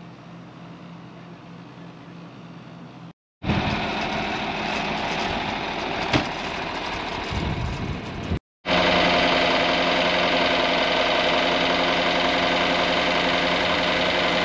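John Deere tractor's six-cylinder diesel engine running steadily. It is muffled at first, as from inside the cab, then after sudden cuts it is heard louder from outside at a steady idle. There is a single short click about six seconds in.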